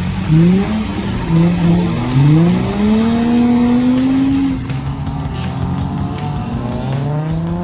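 Drift cars' engines revving hard as they slide in tandem, pitch climbing in several quick rises, one held high for about two seconds before dropping back.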